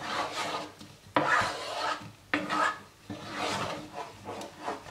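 Wooden spoon stirring thick cornmeal porridge in a pot, rasping and scraping against the pan in repeated strokes about one a second.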